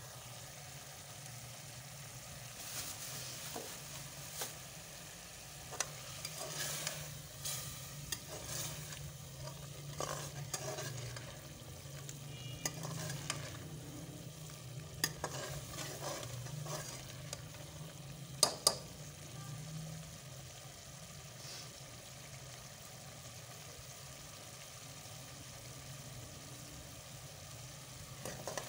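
Pumpkin curry bubbling in an aluminium pressure cooker while a steel ladle stirs it, scraping and clinking against the pot. Two sharp clinks come about two-thirds of the way in, then the ladle stops and only the steady bubbling and a low hum remain.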